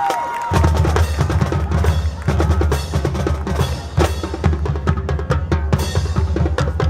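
Marching band percussion playing loudly: rapid snare hits and drum rolls over heavy bass drums, which come in about half a second in.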